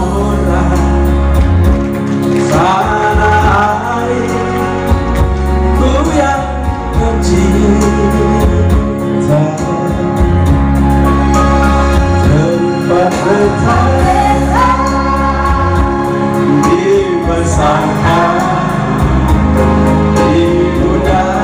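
A man singing live through a stage sound system, with a woman's voice joining in, over an electronic keyboard accompaniment with a steady bass line.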